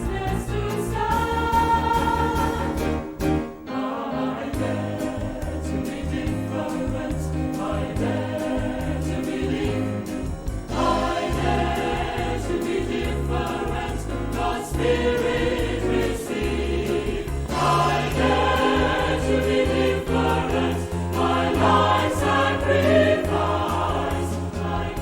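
Choir singing a Christian worship song over instrumental backing with a steady bass beat; the music drops out briefly about three and a half seconds in.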